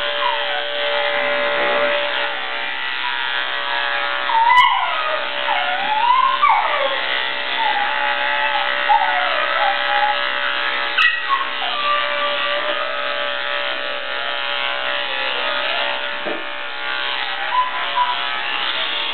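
Electric dog-grooming clippers buzz steadily while a dog whines in long notes that waver up and down. A sharp click comes twice.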